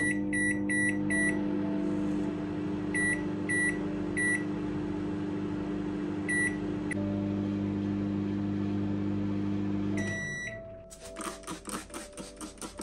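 Russell Hobbs microwave oven running with a steady hum while its keypad beeps as buttons are pressed: four quick beeps, then three, then one. A longer beep comes as the hum stops about ten seconds in, followed by a quick series of squirts from a trigger spray bottle.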